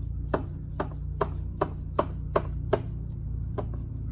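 Plastic hand pump on a bottle of Slime tire sealant being worked, about eight sharp clicking strokes at roughly two to three a second while it is being primed before sealant reaches the tire. A steady low hum runs underneath.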